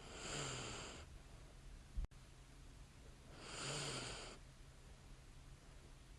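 A woman's light snoring breaths in sleep: two soft, hissy breaths about a second long and roughly three seconds apart, each starting with a faint low snore. A short sharp click comes about two seconds in.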